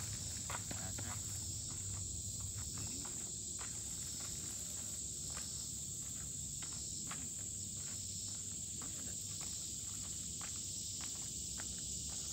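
Steady high-pitched chorus of insects buzzing in the trees, with scattered crunching footsteps on gravel.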